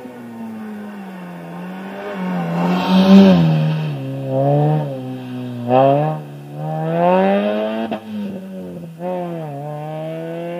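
Renault Megane rally car's engine revving hard, its pitch climbing and dropping several times as the car accelerates and lifts off between chicanes, loudest about three seconds in.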